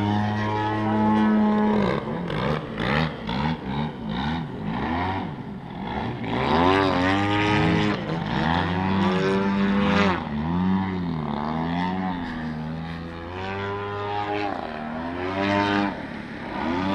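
Giant-scale Extra 330SC radio-controlled aerobatic planes flying. Their engine and propeller pitch repeatedly rises and falls as the planes throttle through manoeuvres and pass by.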